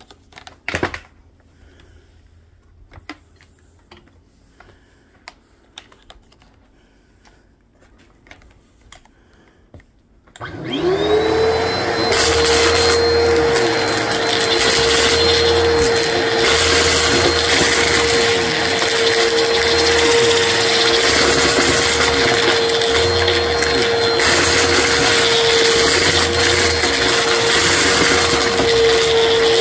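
Upright vacuum cleaner switched on about a third of the way in: the motor spins up in a rising whine and settles into a steady, loud run, with a low rumble that swells and fades every couple of seconds. Before it starts there are only a few scattered clicks and taps.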